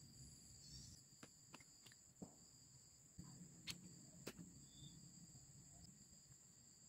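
Faint, steady high-pitched insect chirring, with a few soft clicks and taps as snail shells are handled and picked apart by hand.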